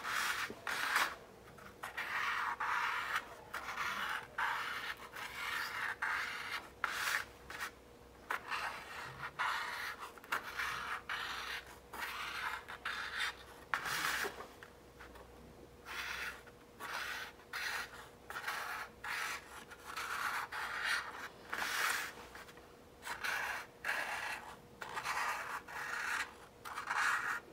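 Black felt-tip marker drawing short strokes on a paper plate: a long run of scratchy strokes, each under a second long, with brief pauses between them.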